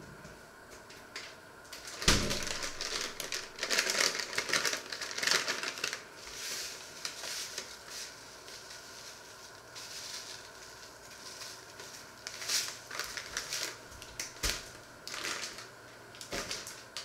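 Paper bag crinkling and rustling in irregular bursts as it is handled and its contents are shaken out over fruit in a pot, densest in the first few seconds, then in scattered bursts with a few sharp clicks.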